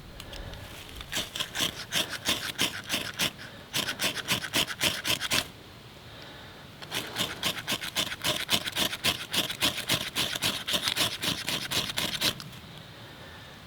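Rapid, rhythmic scraping strokes, about four a second, in two runs of several seconds each with a short pause between.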